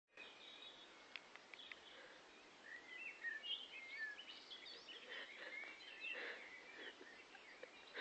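Faint birdsong: many short chirps and whistles from small birds over a low background hiss.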